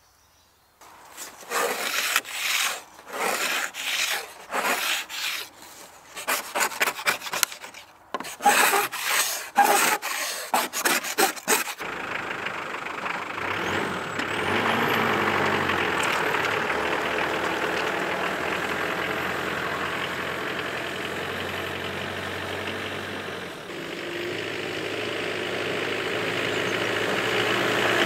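About a second in, a run of irregular rough rasping, rubbing strokes lasting about ten seconds. It then gives way suddenly to a lifted 4x4 pickup truck's engine running as the truck drives across a field, growing louder near the end as it comes closer.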